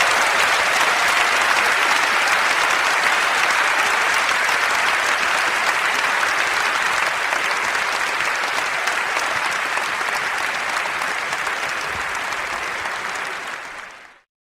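Large crowd of sports spectators applauding steadily, slowly dying down, then fading out quickly near the end.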